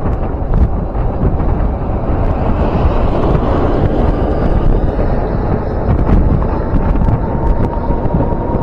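Strong wind buffeting the microphone on a moving e-bike, a loud, steady rushing noise heaviest in the low range, with a few scattered clicks. A faint steady whine comes in about two-thirds of the way through.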